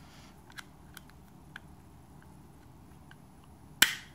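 Kahr CW380 pistol's slide and small parts being worked by hand during reassembly: a few light metal clicks, then one sharp metallic clack near the end.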